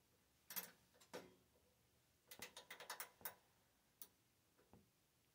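Faint clicking of a small ratchet socket wrench being worked back and forth to loosen a screw: a few single clicks, a quick run of about ten clicks about two seconds in, then one more click near the end.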